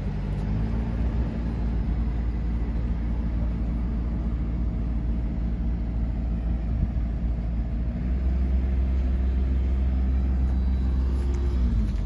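A combine harvester's engine running at a steady idle, its pitch and loudness stepping up about two-thirds of the way through, then cutting off sharply at the end.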